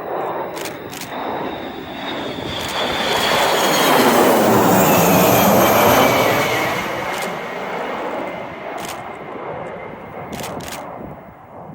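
Military jet passing low overhead: a jet engine noise that swells to its loudest about halfway through and fades away, with a high whine that drops in pitch as it goes by. A few sharp clicks sound over it.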